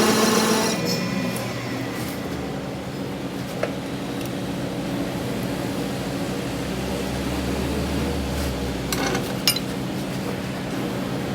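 A workshop machine running with a steady hum and whine stops about a second in, leaving a steady low background hum. A single sharp click comes a few seconds later, and a quick cluster of metal clinks near the end.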